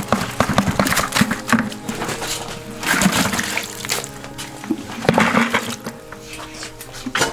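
Background music with steady held tones, over irregular rustling and scraping noises.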